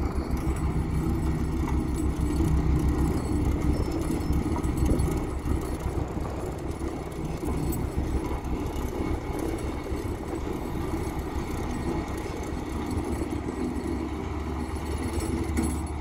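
Diesel engine of a heavy road-construction machine running steadily with a low rumble, easing slightly after about five seconds.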